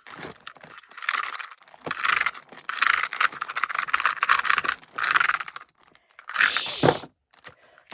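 Toys being handled: repeated bursts of rattling and scraping clatter, with the loudest burst a little before the end.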